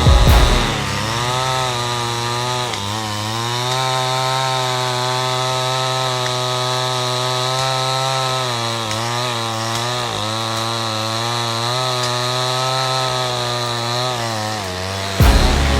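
Two-stroke chainsaw running at high revs while cutting into a large tree trunk. Its pitch sags briefly a few times as the chain loads up in the wood. A loud low rumble sets in near the end.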